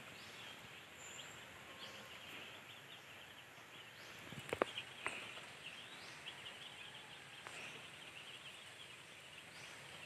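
Faint rural outdoor ambience with steady, dense high-pitched chirping, and a few sharp clicks about four and a half seconds in.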